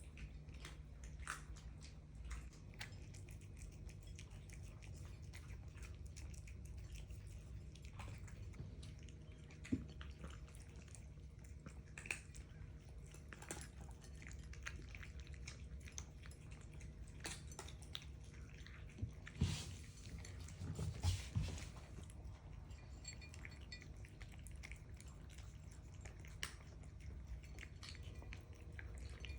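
House cats eating: chewing and crunching food, with scattered small clicks and a few louder knocks about two-thirds of the way through, over a low steady hum.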